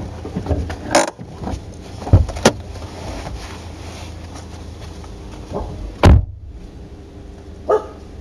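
Steady low rumble of a moving car heard from inside the cabin, with several sharp thumps and knocks. The loudest knock comes about six seconds in.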